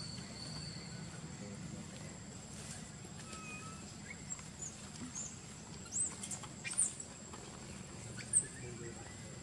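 Forest ambience: a steady high-pitched insect drone over a low background rumble, with a few short high chirps or squeaks in the second half, the loudest about six, seven and eight seconds in.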